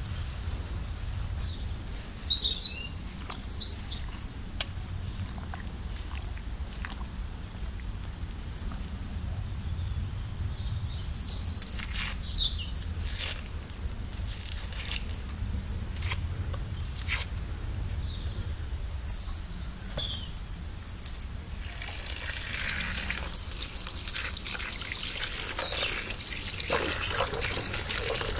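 Small birds chirping in short bursts, three times. A knife clicks against an onion as it is peeled. About two-thirds of the way in, tap water starts running steadily into a bowl of peeled onions being rinsed.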